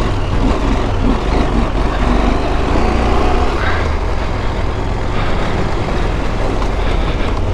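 Adventure motorcycle engine running steadily while riding a gravel road, with heavy wind rumble on the helmet-mounted microphone.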